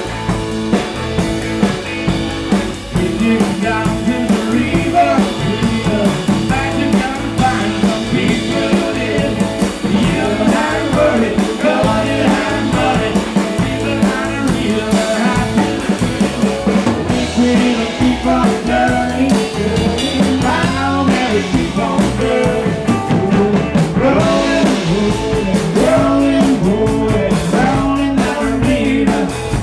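Live rock band playing: a drum kit keeps a steady beat under a sung vocal line.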